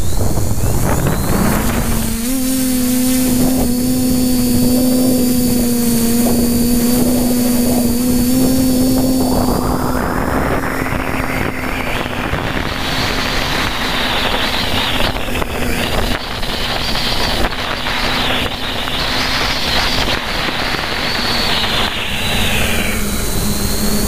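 TBS Discovery quadcopter's electric motors and propellers, heard from the onboard camera, spinning up with a quick rising whine and then holding a steady hum. From about ten seconds in, a loud rush of wind on the microphone rises over the hum as the quadcopter flies forward in strong wind, easing near the end.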